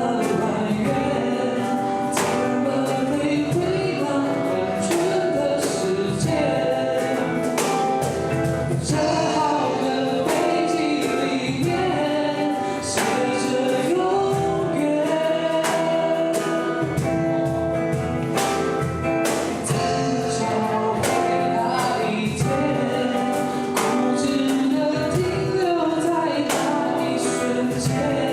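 Several male and female voices singing a Mandarin pop song together over strummed acoustic guitar.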